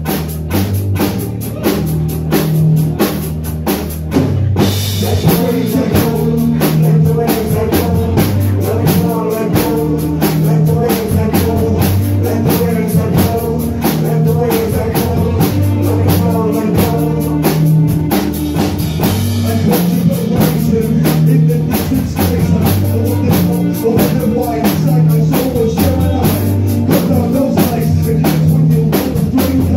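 Live band playing a song: a drum kit keeps a steady beat with cymbals over long held bass notes, with a short break about four seconds in before the beat comes back.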